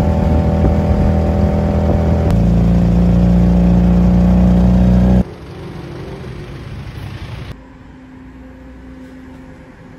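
Tuk-tuk engine running steadily under way, heard from the passenger seat. About five seconds in it cuts off abruptly to much quieter street traffic noise.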